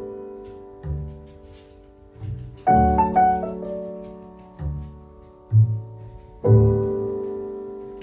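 Background piano music: slow chords over low bass notes, each one struck and left to fade, with fuller chords about a third of the way in and again near the end.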